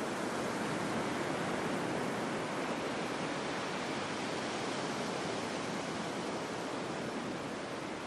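Ocean surf washing and breaking in a steady, unbroken rush, a stock sound-effect recording of waves.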